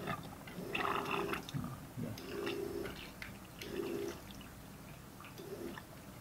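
Liquid forced through an oil gallery of a Mazda 13B rotary engine's rear iron housing, spurting out of a port and splattering into a metal pan in about five separate gushes.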